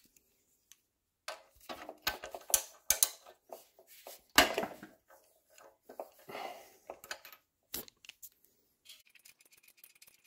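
Metal clicks and clanks of a ratchet and spark plug socket being fitted and worked to loosen and remove the spark plug from a Honda EZ2500 generator engine. The sharpest clank comes about four and a half seconds in, and faint quick clicking follows near the end.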